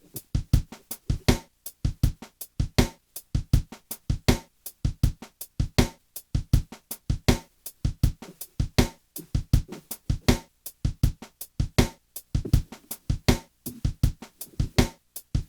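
Electronic drum-machine loop playing: short, sharp percussive hits, several a second, in a choppy stuttering pattern with brief gaps between them.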